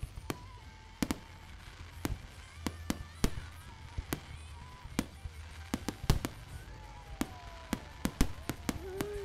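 Aerial fireworks display: shells bursting in an irregular run of sharp bangs, some in quick clusters, coming thicker towards the end.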